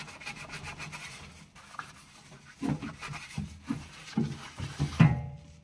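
A cloth wiping and rubbing across a kitchen countertop in quick repeated strokes, then a few soft low bumps. A short voiced sound near the end is the loudest moment.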